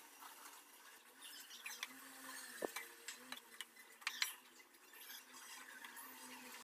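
Spatula stirring and scraping through upma in a nonstick pan, with scattered light clicks and scrapes.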